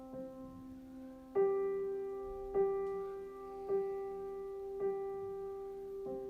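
Background piano music: a slow piece with one note struck again about once a second over held chords.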